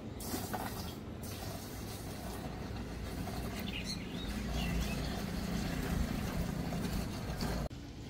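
Liquid pouring in a steady stream from a metal jerrycan into the filler opening of a plastic drum, a continuous splashing hiss that cuts off abruptly near the end.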